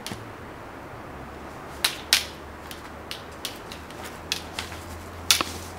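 Long staves clacking together in sparring: two sharp knocks about two seconds in, a string of lighter taps, and a loud knock near the end, over a faint steady low hum.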